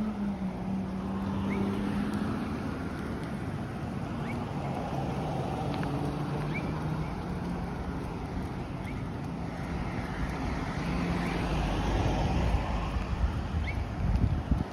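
A steady low engine hum under an outdoor wash of noise, with a few faint short chirps; near the end wind rumbles on the microphone.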